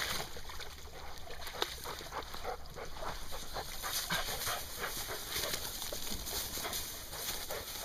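A gundog panting, with the rustle and swish of movement through long grass.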